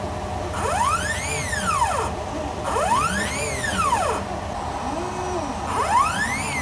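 Stepper motors driving the axes of a large gantry CNC machine back and forth: a whine that rises in pitch as each move speeds up and falls again as it slows, about every two seconds, with a shorter, lower move about five seconds in.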